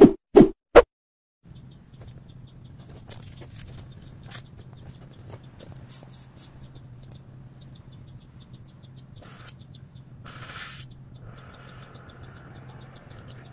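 Small birds chirping over a steady low machinery hum, with a short rustling noise about ten seconds in. A few quick clicks and pops from a subscribe-button sound effect come right at the start.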